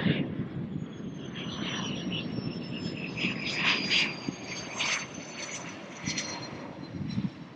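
Aircraft engine running as a plane passes: a steady low rumble with a faint high whine that slowly falls in pitch.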